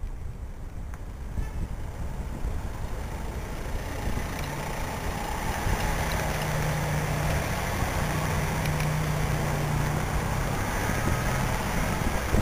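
Queued cars and vans with their engines idling, passed at close range. A steady engine hum stands out from about four seconds in until near ten seconds, over a low traffic rumble that grows louder through the stretch.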